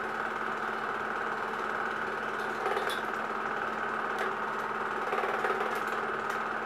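Film projector running: a steady, rapid mechanical clatter over a constant hum, with a few sharp ticks in the second half.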